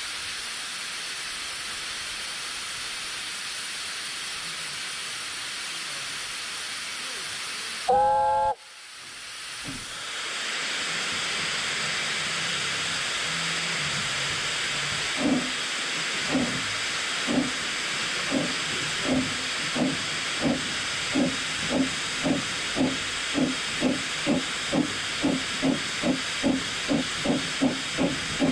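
Talyllyn Railway No.3 'Sir Haydn', a narrow-gauge 0-4-2 saddle-tank steam locomotive, hissing steadily, then one short whistle blast about eight seconds in. After a pause its exhaust chuffs begin, slow at first and quickening steadily as the engine starts away.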